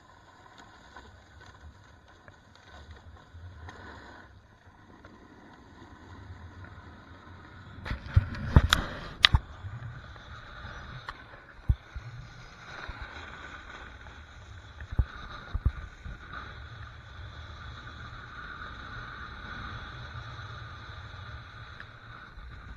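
Snowboard sliding and scraping over packed, groomed snow, a steady rushing noise on the action camera's microphone. A cluster of sharp knocks and clatters comes about a third of the way in, with a few single knocks later.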